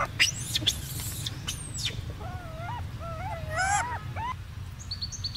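Macaque calls: a few sharp, high squeaks, then a run of about six short wavering cries that rise and fall in pitch, over a steady low rumble.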